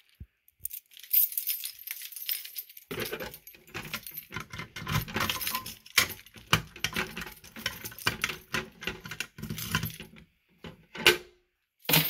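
A ring of keys jangling and clicking as a reset key is worked in the lock of a fire alarm pull station: a dense metallic clatter through the middle, with a few sharper clicks near the end.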